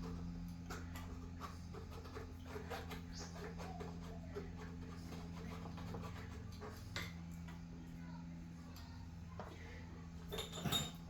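Faint, irregular metallic clicks and small clinks of metal tools being handled, over a steady low hum, with a louder short clatter about ten and a half seconds in.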